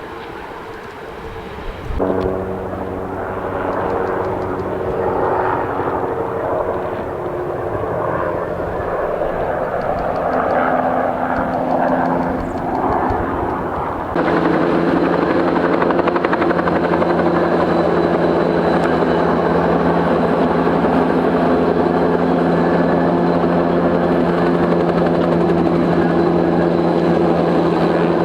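Firefighting helicopter's rotor and engine running in a steady drone. The sound rises about two seconds in, then jumps suddenly louder about fourteen seconds in and holds steady.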